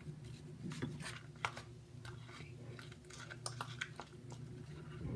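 Glue-based slime being stirred in a bowl as the activator starts to take: irregular small wet clicks and squelches, over a steady low hum.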